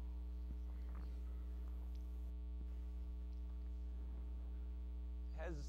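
Steady electrical mains hum with a ladder of overtones, and a few faint clicks about half a second and a second in.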